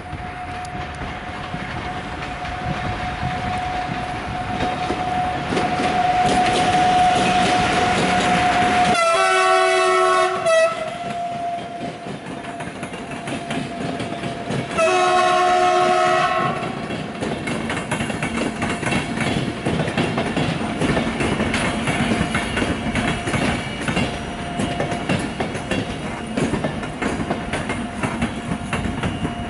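Passenger express hauled by a Siemens Husarz (EU44) electric locomotive passing: two long blasts of its multi-tone horn, a few seconds apart, then the clickety-clack of the coach wheels over the rail joints as the train rolls by. A steady high whine sounds underneath throughout.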